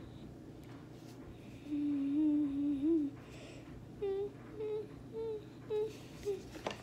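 A child humming a tune: one long wavering note, then a run of short, higher notes.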